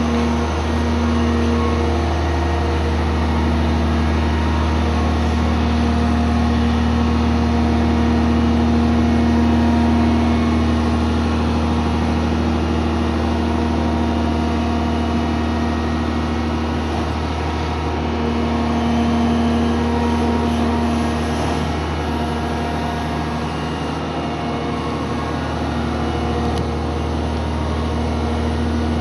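Sennebogen 825M material handler's diesel engine running steadily while the machine works its boom and slews. The level swells slightly and eases off at times.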